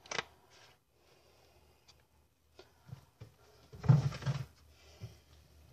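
Quiet handling of glass kitchen containers: a short click at the start and a brief rustling knock about four seconds in.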